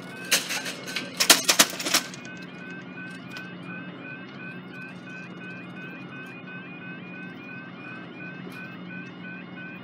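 Level crossing warning alarm sounding: a short rising electronic tone repeated about three times a second, over a steady low hum. A few loud sharp knocks come in the first two seconds.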